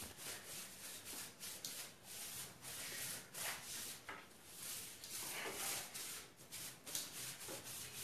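Repeated, irregular rubbing strokes over a painted wooden tabletop, faint: wiping off the paint scrapings and dust left after the finish has been scraped back.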